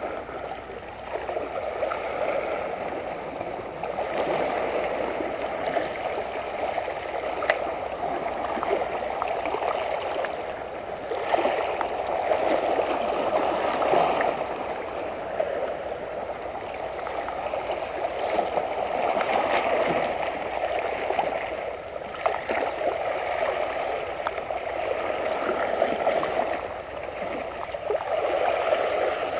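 Seawater sloshing and lapping against shoreline rocks, swelling and easing every several seconds, with a few faint clicks.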